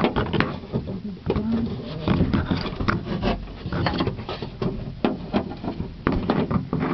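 Fingers working inside a 1998 Ford Explorer's door around the lock mechanism: many irregular clicks, knocks and rattles of the lock parts and door panel.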